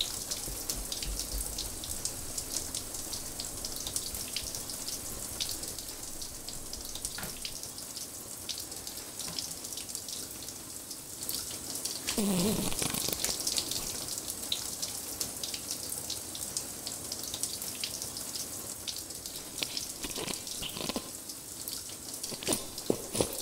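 Shower spray running steadily. About twelve seconds in there is a wet, fart-like sputter lasting about a second, and a shorter one comes near the twenty-one-second mark.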